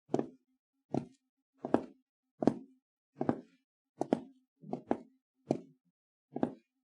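Footsteps on a wooden floor: a steady walk of about ten knocking steps, a little over one a second, a couple of them landing as a quick double knock.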